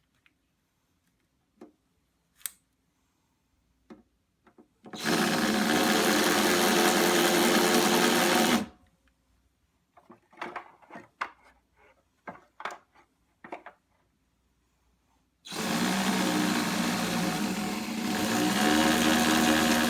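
Electric power drill running in two long runs, the first about three and a half seconds long and the second starting about fifteen seconds in, with a scatter of short knocks and clicks between them.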